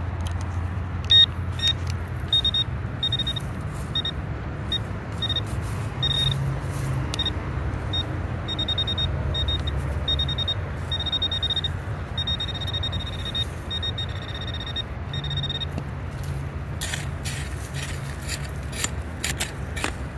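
Handheld metal-detecting pinpointer beeping over a buried target, a string of short high chirps, some quick and some held longer. Near the end, a digging tool scrapes and chops into gravelly dirt, over a steady low rumble.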